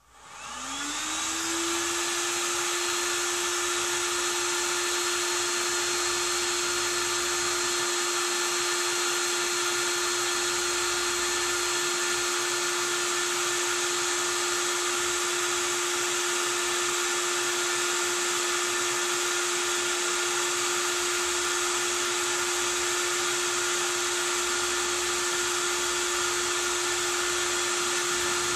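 Handheld cordless power tool with a socket on a tractor wheel nut, its motor spinning up within about a second and then running at a steady whine with no change in load.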